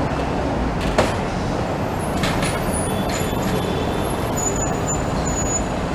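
Hong Kong double-decker tram rolling in along curved street track over steady traffic rumble, with a single knock about a second in and thin high-pitched squeals in the second half.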